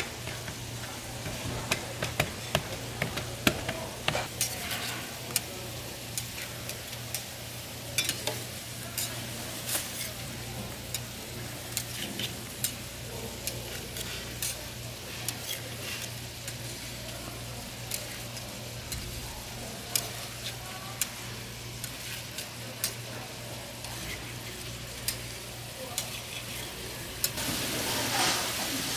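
Handmade tteokgalbi (minced-meat patties) sizzling in oil on a flat stainless-steel griddle, with frequent sharp pops and clicks of a metal spatula turning them. A steady low hum runs beneath, and the sizzle grows louder near the end.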